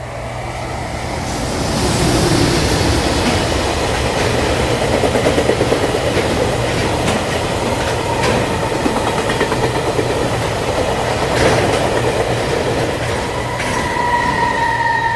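Sound effect of a full-size freight train passing: a steady rumble with wheels clattering over rail joints. A steady high squealing tone comes in near the end.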